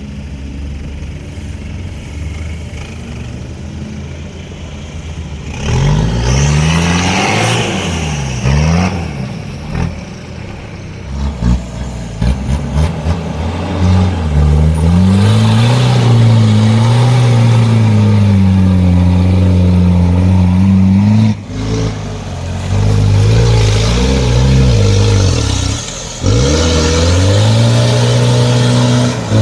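Off-road 4x4 engine revving under load, its pitch rising and falling as the throttle changes, quieter at first and loud from about six seconds in.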